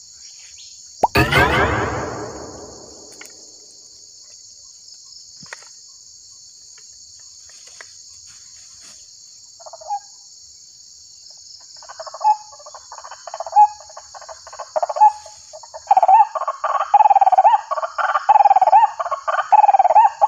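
A white-breasted waterhen (ruak-ruak) call played through a loudspeaker as a trapping lure. It starts as scattered notes about twelve seconds in and becomes a rapid, nearly continuous run of repeated calls in the last few seconds. Under it runs a steady high drone of insects, and a loud burst about a second in fades away over two seconds.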